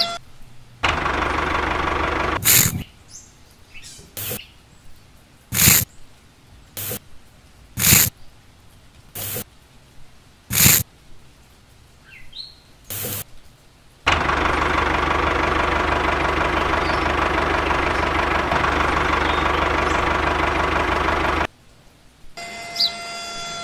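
Small electric motor of a handmade miniature dump truck running steadily, once briefly near the start and again for about seven seconds in the second half. Between the two runs come about eight sharp knocks, spaced a second or so apart, as cement is scooped and tipped into the tin truck bed.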